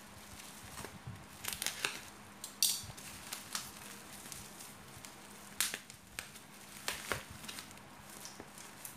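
Plastic parcel wrapping and packing tape crinkling and tearing as hands pull the package open, in irregular crackles with a few sharper rips.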